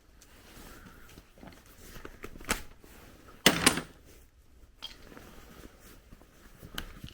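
Metal hand tools and differential parts clinking and knocking as they are handled, with a sharp knock about two and a half seconds in and a louder cluster of knocks about a second later.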